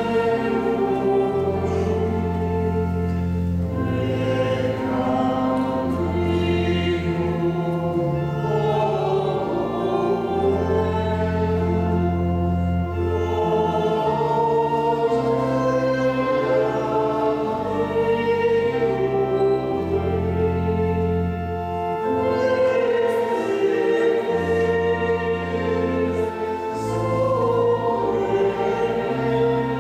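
A choir singing a slow sacred hymn, with long held low notes beneath the voices.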